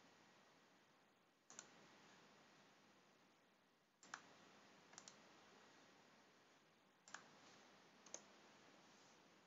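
Near silence broken by a few faint computer mouse clicks, spaced a second or more apart, one of them a quick double click.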